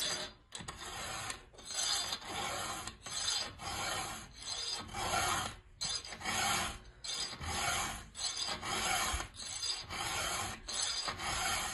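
Round chainsaw file rasping across a saw-chain cutter tooth in repeated strokes, about one a second: the chain is being hand-sharpened.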